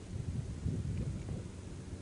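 Low, uneven rustling and handling noise of hands fumbling with the RC truck's body and wiring, with no distinct clicks.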